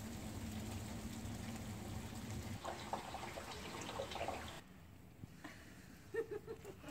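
Steady hiss and patter of sleet falling, with drips; it turns quieter about two-thirds of the way through, and a few short faint squeaks come near the end.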